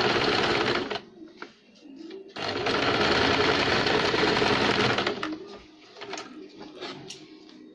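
Electric home sewing machine stitching over the end of an elastic band to fasten it. It runs steadily, stops about a second in, then runs again for about two and a half seconds before stopping, followed by a few light clicks as the fabric is handled.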